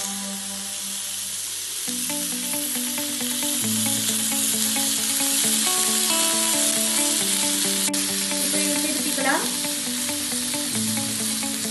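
Chicken satay skewers frying in oil on a flat pan, a steady hissing sizzle, with background music playing underneath.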